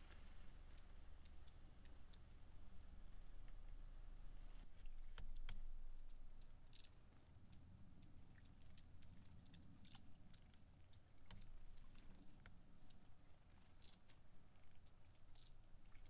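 Long-tailed tits calling faintly: scattered thin, very high short notes, with about four louder, slightly longer calls in the second half.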